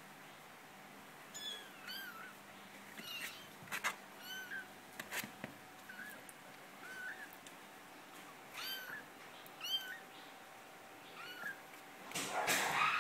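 Very young kittens mewing: short, high, squeaky calls that rise and fall, about one a second. A few sharp clicks come in the middle, and a louder rustle near the end.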